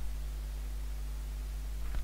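Steady low electrical hum with hiss: mains hum and noise from the recording setup. A faint click comes right at the end.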